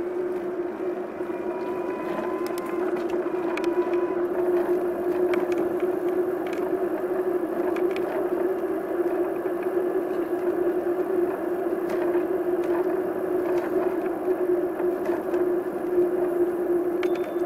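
Riding sound of a bicycle in motion: a steady hum over a rushing noise, with a few light clicks and rattles scattered through.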